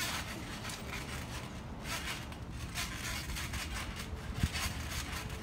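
Feet bouncing on a trampoline mat: soft, irregular thumps and rustles, with one sharper thump about four and a half seconds in.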